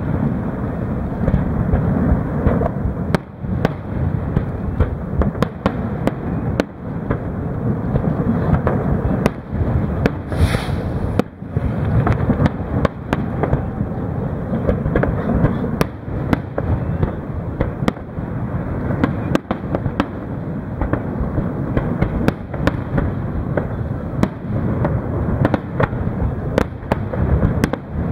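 Fireworks display: aerial shells bursting in a continuous barrage, many sharp bangs and cracks over a steady low rumble.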